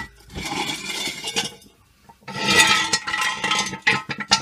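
Steel axle stand being worked out from under the raised car: metal scraping and clanking in two stretches, with a ringing metallic tone, then a few sharp clinks near the end.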